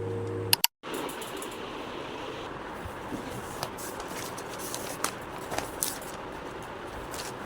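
Background music cuts off just after the start. Then comes a steady hiss of room or ambient noise with scattered light clicks and taps, such as objects being handled.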